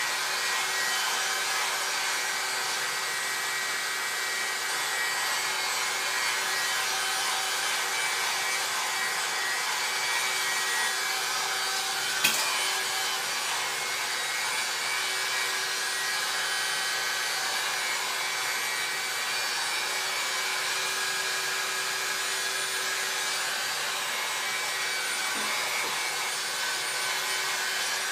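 A 1-1/2 inch Helen of Troy hot-air styling brush running steadily, its fan blowing with a constant hum as it is worked through a damp beard. A single sharp click comes about twelve seconds in.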